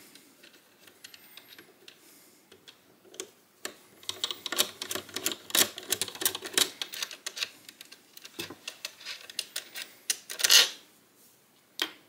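Phillips screwdriver unscrewing the long euro-cylinder retaining screw from a mortice lock's faceplate: a run of small, irregular clicks and ticks as the screw turns out, with a louder rasp near the end.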